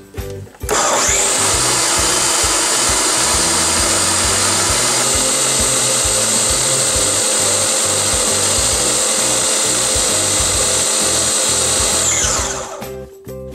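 Electric food processor motor spinning up about a second in, running steadily with a high whine as it grinds the minced-meat kebab mixture fine, then winding down near the end. Faint background music underneath.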